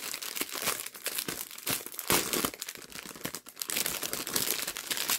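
Small clear plastic bags of diamond-painting drills crinkling and rustling in the hands, in irregular crackling bursts.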